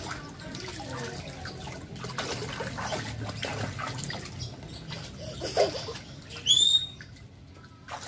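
Shallow water in an inflatable paddling pool splashing and sloshing as a toddler moves her hands and feet through it. About five and a half seconds in there is a short rising vocal sound, then a brief very high squeal, before it goes quieter near the end.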